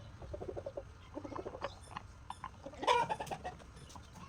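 Chicken clucking in short repeated calls, with one louder call about three seconds in.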